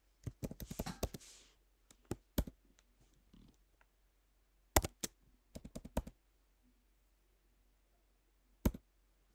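Typing on a computer keyboard: short bursts of keystrokes with pauses between them.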